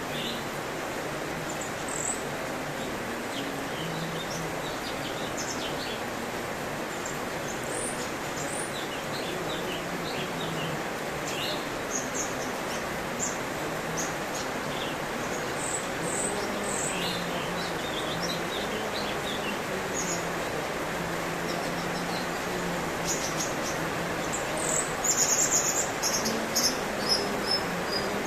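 Cucak cungkok songbird calling: scattered short, high chirps and whistles, with a louder, busier run of notes near the end, over a steady background hiss.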